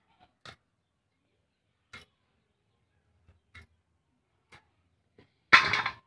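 Onion flower stalks being cut on an upright floor blade (boti), each cut a short crisp snap, five spaced about a second or so apart. A louder, half-second clatter comes near the end.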